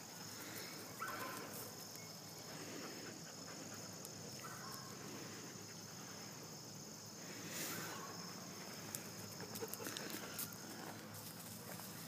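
Crickets calling in a faint, steady, high-pitched chorus, with a few soft rustles and faint clicks over it.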